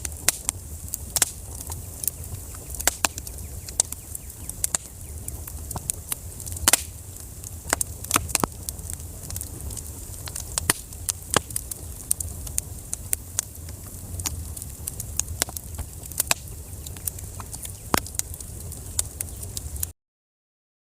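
Wood fire crackling in a fireplace: irregular sharp pops and snaps over a low steady rumble of the flames. The sound stops abruptly near the end.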